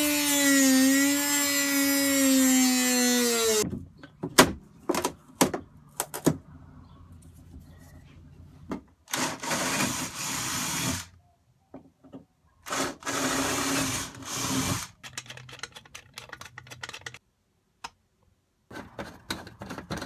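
A corded handheld power tool whines steadily while cutting a rectangular opening in a sailboat's cabin bulkhead, then spins down about four seconds in. A few sharp knocks follow, then a DeWalt cordless drill runs in two bursts of about two seconds each, around ten and fourteen seconds in.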